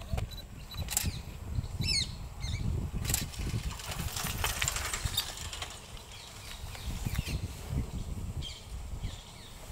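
Rustling of an Indian peafowl's fanned train feathers as it displays and turns, over an irregular low rumble. A small bird gives a short chirping call about two seconds in.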